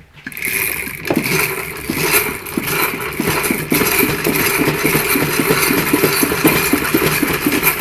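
Ryobi 31cc string-trimmer engine revving up within the first couple of seconds and holding near full RPM, spinning the rear wheel through a roller chain. A fast, steady rattle runs through it from the loosely tensioned drive chain.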